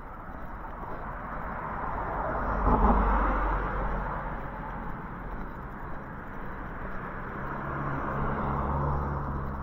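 Cars passing on the road: the first swells to a peak about three seconds in and fades as it drives away, and a second passes near the end with a low engine hum under its tyre noise.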